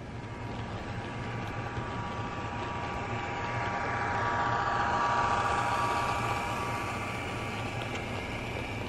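HO scale model freight train running on the track: a steady mechanical hum with a whine that swells about halfway through and then eases as the train comes up to the camera.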